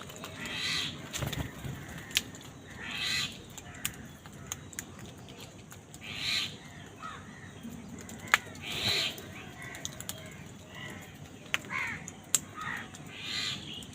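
Crows cawing: five harsh caws a few seconds apart, with softer calls between them and a few sharp clicks.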